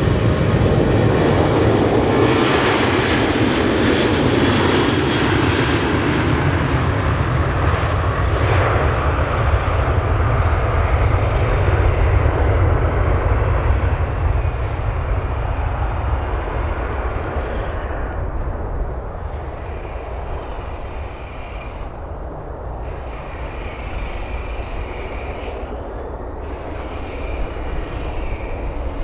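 Southwest Boeing 737-700 jet engines roaring on takeoff and climb-out, loud at first and fading steadily after about halfway as the airliner climbs away.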